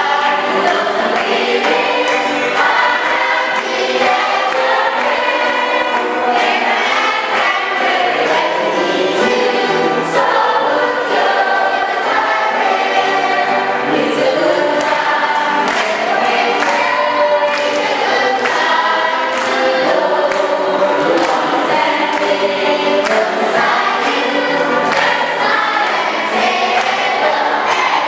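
A choir singing a gospel song, several voices in harmony.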